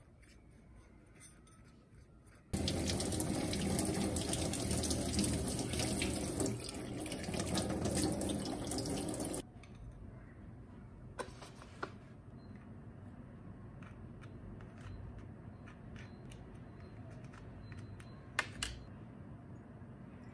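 Water running from a kitchen tap for about seven seconds, starting and stopping abruptly, followed by a few light clicks.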